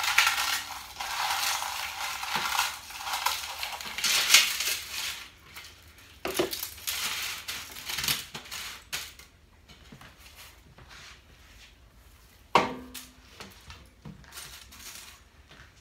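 Eggshells poured from a plastic bowl onto a cookie sheet: a dense crunching rattle for the first five seconds. This is followed by scattered clicks and clanks as the shells are spread by hand and the sheet is handled, with a sharper knock about twelve and a half seconds in.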